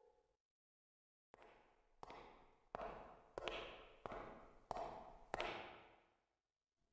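Slow footsteps echoing in a large empty space: seven evenly paced steps, about two-thirds of a second apart, each trailing off in reverberation.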